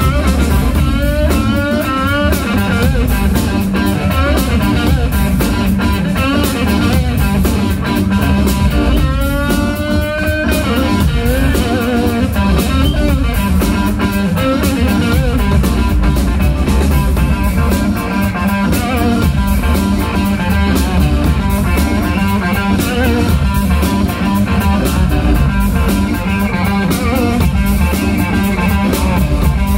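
Live instrumental organ-trio funk: electric guitar playing lead lines over organ and a drum kit keeping a steady beat, with quick rising slides about a second in and again near ten seconds.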